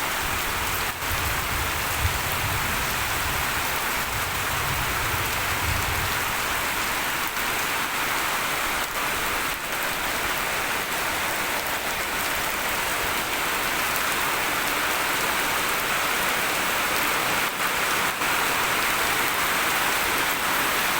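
Steady rain falling, an even, dense hiss of drops on surfaces, with a low rumble underneath for the first six seconds or so.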